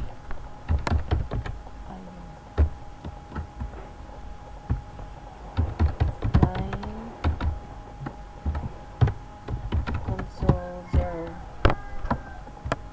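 Typing on a computer keyboard: irregular keystroke clicks, some in quick clusters, as a short command is typed.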